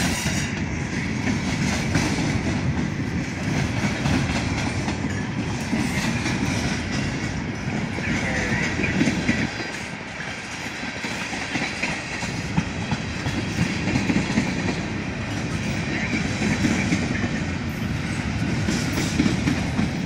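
Freight cars of a Norfolk Southern train rolling past: a steady rumble of steel wheels on rail, briefly quieter about halfway through.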